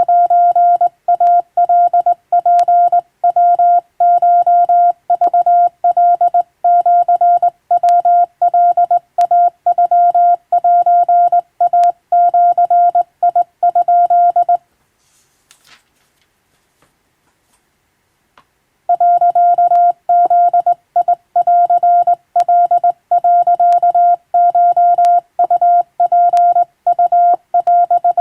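Hand-keyed Japanese wabun Morse code: a steady single-pitch tone keyed on and off in dots and dashes. It breaks off for about four seconds around the middle, then sending resumes.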